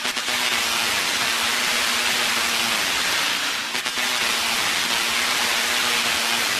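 Electronic dance music in a hissing white-noise sweep passage over faint steady tones, dipping briefly near the start and again about midway.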